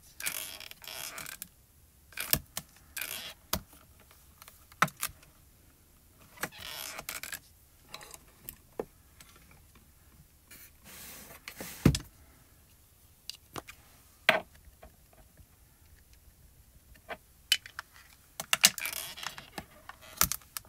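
Stamping handling noises: scattered clicks and taps of a stamp positioner's hinged acrylic lid and a clear photopolymer stamp as it is picked up and inked, with short rustles between. One louder knock comes about midway.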